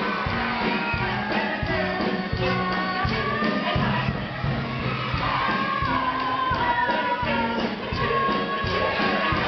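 Live stage musical number: voices singing a polka tune over instrumental backing.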